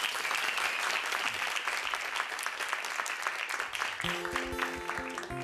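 Studio audience applauding. About four seconds in, an acoustic guitar starts playing as the applause dies away.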